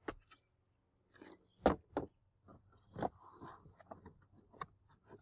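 Irregular clicks and knocks of hands handling a car's plastic cargo-area trim panel, the loudest knock a little under two seconds in.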